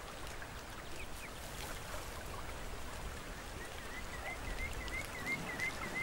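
Steady rain falling, with a few separate drops ticking. From a little past halfway, a faint high chirp repeats about four times a second.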